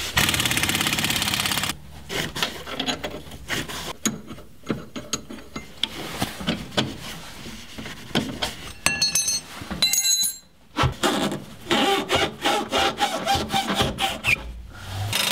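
Impact wrench with a 3/4-inch socket rattling a U-bolt nut loose on a leaf-spring plate for nearly two seconds, then metal clinks, scraping and rapid ticking as the loosened nuts and plate are worked off by hand.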